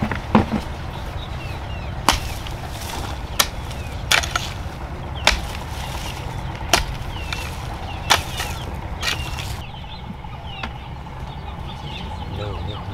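Hand hoe chopping into garden soil, about eight sharp strikes a second or so apart, stopping after about nine seconds. Small birds chirp faintly in the background.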